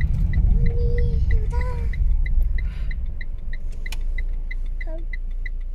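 Car cabin noise: a low engine and road rumble easing off as the car slows, with the turn-signal indicator ticking evenly about three times a second.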